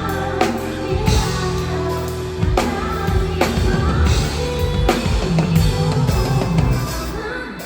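Pop band playing live, with the drum kit up front in the mix: bass drum, a Craviotto snare and cymbals driving the beat under a singing voice.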